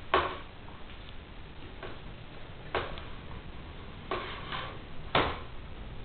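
Light knocks and scuffs at irregular intervals, about five in all, the loudest near the start and about five seconds in: a pet ferret moving a toy about on a hard floor by a door.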